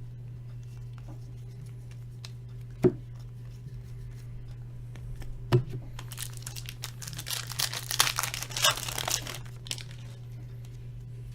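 Two sharp taps, then a foil trading-card pack wrapper being torn open and crinkled for a few seconds.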